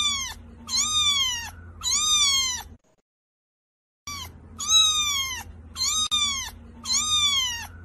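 A cat meowing repeatedly: short, high-pitched meows, each sliding down in pitch. The meows stop dead for about a second and a half near the middle, then start again.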